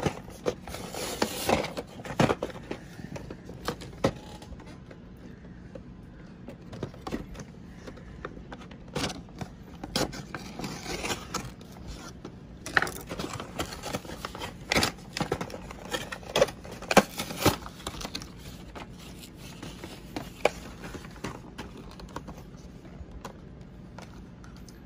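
Cardboard backing of a toy blister pack being torn and picked at by hand, with the plastic blister rattling: irregular scraping, rustling and crackling with scattered sharp clicks.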